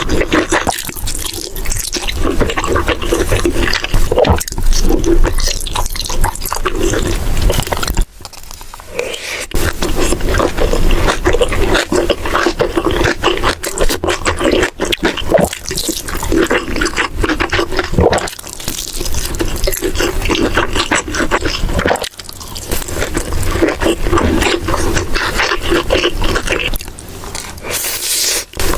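Loud, close-up eating sounds: chewing, crunching and biting into food, made of many short sharp crackles, with abrupt changes a few times where clips are joined.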